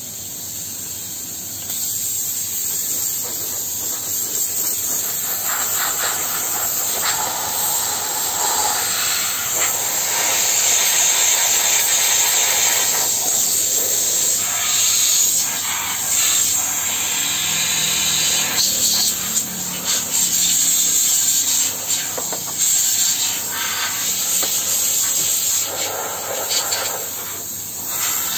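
A jet of steam from a steam cleaner's lance, blasted onto an espresso machine: a loud, steady hiss that steps up about two seconds in and then rises and falls in strength.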